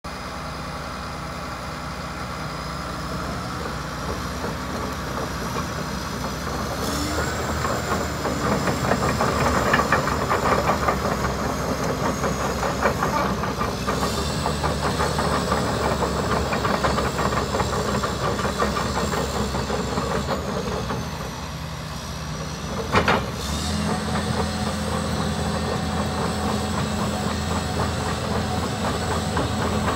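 Caterpillar D5M LGP crawler dozer on the move: its turbocharged diesel engine runs steadily under the clatter of its steel tracks, with a high whine that steps up in pitch twice as the engine revs. About three-quarters of the way through there is one sharp knock, and the engine then settles to a steadier, lower note.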